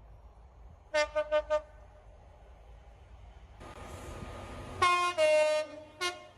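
Train horn: four quick short toots on one note, then, over the rushing noise of a passing train, a two-tone blast, a high note dropping to a lower held note, and a last short toot.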